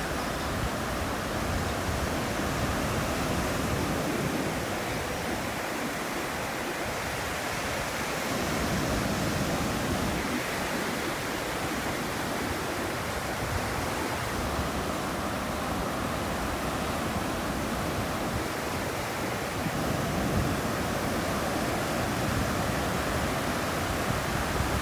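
Steady rush of water, a dense even hiss that swells and eases gently every several seconds.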